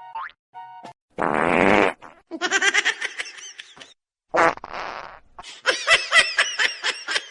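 Two short fart sounds, each followed by a burst of high-pitched laughter.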